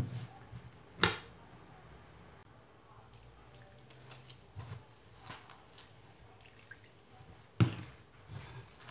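A hand squishing and kneading wet, sticky brioche dough of flour, eggs and milk in a glass bowl, with soft wet squelches and a few sharp knocks, the loudest about a second in and near the end.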